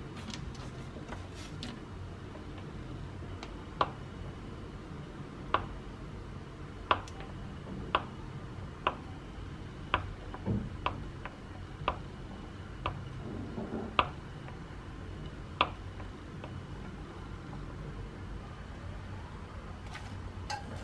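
Kitchen knife cutting a block of Comté cheese into cubes, its blade knocking on a wooden cutting board: about a dozen sharp taps, spaced irregularly about a second apart.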